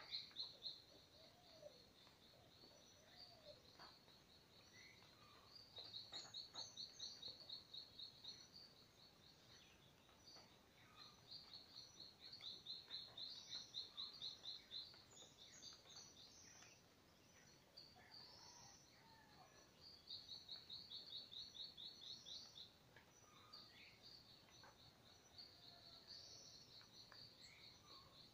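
Faint dawn chorus of birds in tropical forest: a high, fast-pulsed trill comes in runs of about two seconds, three times, among scattered short chirps and calls.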